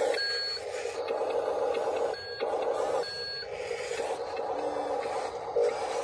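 RC wheel loader's reversing beeper sounding three short, evenly pitched beeps over the steady whine of its drive motor as it backs away.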